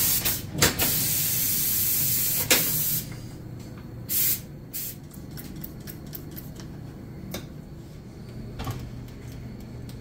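A loud hiss lasting about two seconds near the start, then a shorter hiss about four seconds in and a few quick squirts from a trigger spray bottle of tire lube sprayed onto a motorcycle tire's bead.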